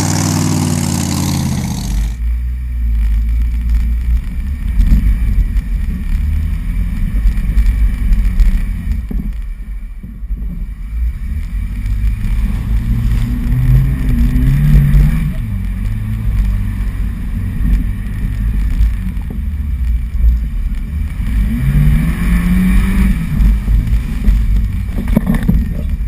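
Off-road vehicle engine running with a deep, heavy rumble, revving up and down a couple of times: once about halfway through and again near the end. The first couple of seconds carry a brighter, higher engine sound that cuts off abruptly.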